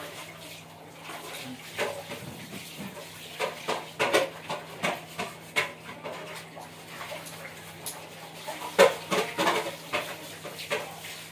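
Irregular clatter of hard objects clinking and knocking together as they are handled, with a sharper knock about nine seconds in, over a faint steady hum.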